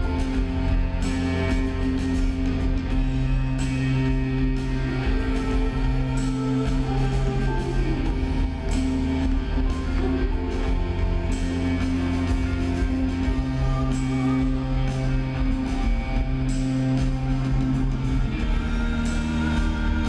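Live rock band playing through a big concert PA, heard from the crowd: a slow groove of long held bass notes that change every couple of seconds, with guitar and drums.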